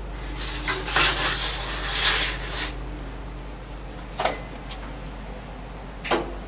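A young crow preening and shifting on a metal wire perch: a rustling clatter of feathers and light metal clinks for about two seconds, then two short sharp clicks.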